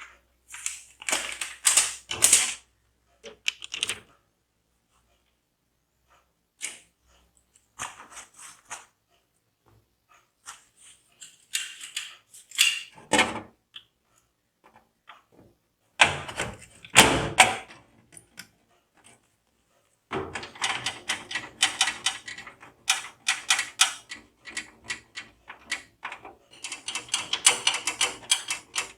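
Scattered sharp clicks and knocks, then from about two-thirds of the way in a long run of rapid light clicks like a computer keyboard being typed on.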